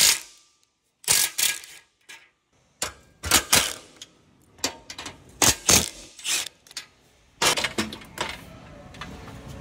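Sharp metallic clanks and clicks at irregular intervals, in small clusters: steel tools and fittings knocking against the perforated steel deck of a frame-straightening rack.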